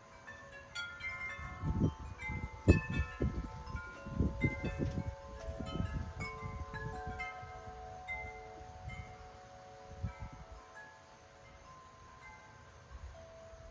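Wind chimes ringing in gusty wind: many overlapping struck tones, busiest in the first half and thinning out towards the end, over low rumbles of wind buffeting the microphone.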